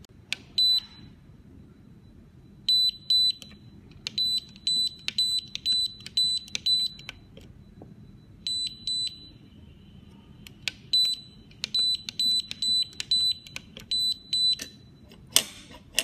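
Electronic safe lock keypad beeping under key presses: runs of short high beeps, about three a second, each with a faint click of the key. A single loud knock comes near the end.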